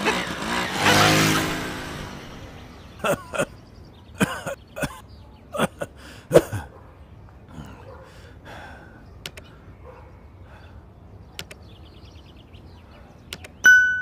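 Cartoon sound effects. In the first two seconds there is a loud rushing sound with a falling tone, then several sharp taps over the next few seconds, then a long quiet stretch. Near the end comes a bright chime.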